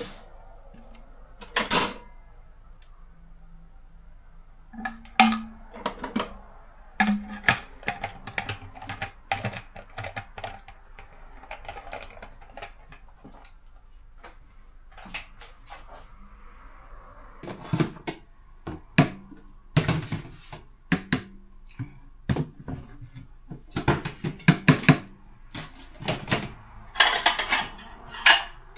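Kitchen dishes, pans and utensils knocking and clinking as they are handled and put down, in irregular clatters with short pauses between.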